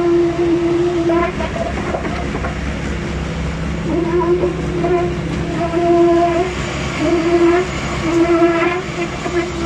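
Diesel-powered concrete mixer pump running: a steady engine drone under a pitched whine that comes and goes in stretches of about a second as the pump cycles.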